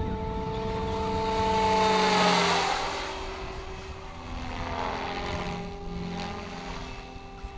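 SAB Goblin 500 electric radio-controlled helicopter in flight: a steady rotor and motor whine that swells to its loudest about two seconds in and drops slightly in pitch as it passes, then swells again around five to six seconds in.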